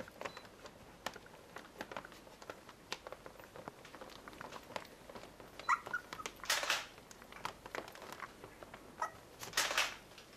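20-day-old Pembroke Welsh Corgi puppies shuffling and scratching on a blanket, with light scattered clicks of claws and fabric. There are two short squeaks about six and nine seconds in, each followed by a brief noisy rustle.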